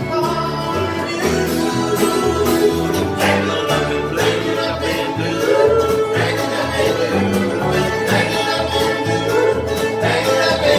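A bluegrass string band playing live: fiddle, mandolin, acoustic guitar, resonator guitar and upright bass together, with the bass notes pulsing steadily underneath.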